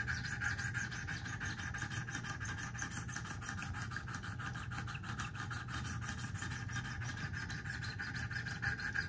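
Sharpening stone on a Wicked Edge guided sharpener rubbing along a knife edge in steady, repeated strokes. These are the first passes at a 16.4° angle over a freshly marker-coloured bevel, to check where the stone meets the edge.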